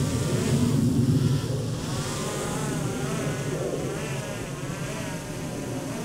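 A drone hovering and manoeuvring nearby, its propeller buzz wavering up and down in pitch, a little louder in the first second and a half.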